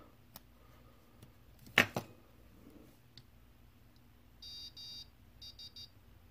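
Iambic keyer kit's on-board buzzer sending Morse: two longer high beeps followed by three short ones, on one steady high tone. A sharp click, the loudest sound, comes about two seconds in.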